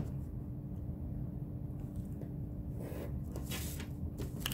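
Steady room hum with a constant low tone, and a few faint scratches and rustles of pencil and paper in the second half as guide lines are marked on a drawing.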